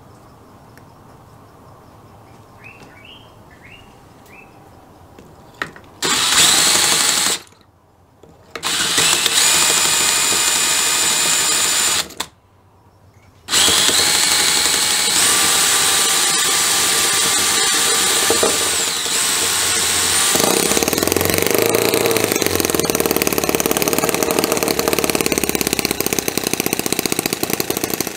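Cordless drill spinning a MUSA F1 2.7cc single-cylinder four-stroke OHV model engine to start it, in three bursts with short pauses. After the third burst, about twenty seconds in, the drill's whine stops and the little engine keeps running steadily on its own.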